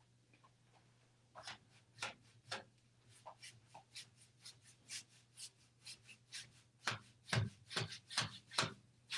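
Faint, short scratchy strokes of a paintbrush dry-brushing paint onto a wooden wardrobe door, about two strokes a second, getting louder near the end.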